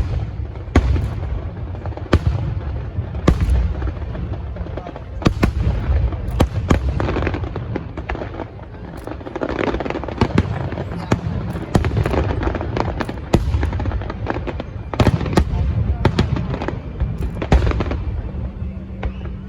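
Aerial fireworks bursting in quick succession: sharp bangs every second or so over a continuous low rumble, coming thickest around the middle.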